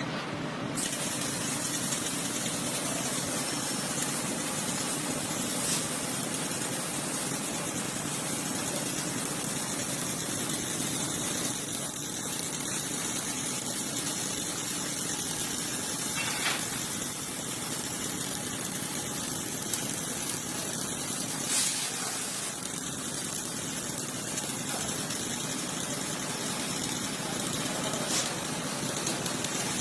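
Robotic arc welder running a weld: a steady hiss with high-pitched crackle that starts about a second in, with a few sharp ticks along the way.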